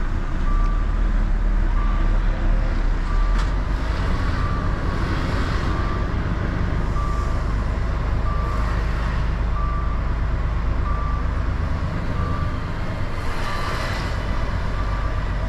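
Articulated lorry reversing: its reversing alarm gives one short high beep about every 1.3 seconds over the steady rumble of the diesel engine.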